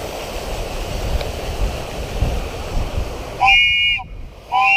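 Wind and handling rumble on the microphone, then two short horn blasts about a second apart near the end, each lasting about half a second.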